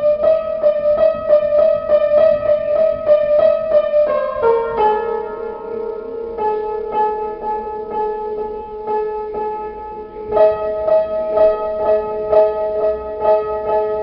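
Solo piano playing a figure of quickly repeated notes, about four a second. About four seconds in the chord shifts lower and the notes come more sparsely and softly, then they grow louder again about ten seconds in.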